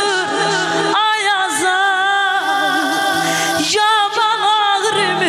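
A woman singing an Azerbaijani song into a microphone in an ornamented, wavering style. A long held note with fast trills runs from about a second in to nearly four seconds, over a low steady tone.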